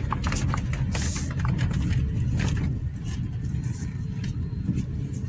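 A Toyota Corolla being driven on the road: steady low engine and road noise, with a few faint clicks and knocks.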